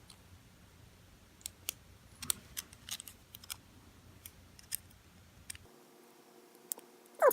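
Light, scattered metallic clicks and ticks of small padlock parts (pins, springs and the cylinder) being handled during repinning, with a loud falling squeak right at the end.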